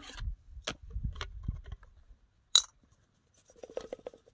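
Hands handling gear: scattered clicks and knocks, with one sharp click about two and a half seconds in and a short run of quick rattling near the end.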